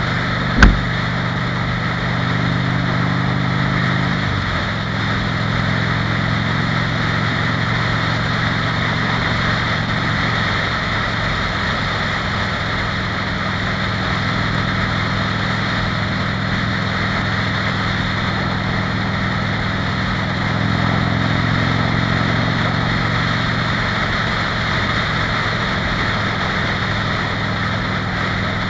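Harley-Davidson Fat Bob's V-twin engine running steadily while riding at road speed, with wind rushing over the microphone. A single sharp knock just under a second in, and the engine note shifts about four seconds in.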